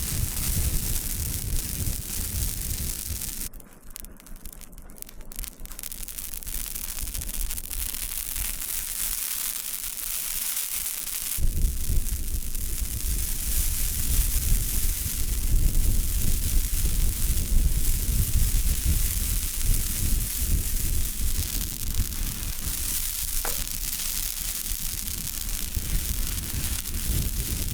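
Wind buffeting the microphone: a gusty rumble under a steady hiss. It drops away for several seconds about four seconds in, then comes back stronger.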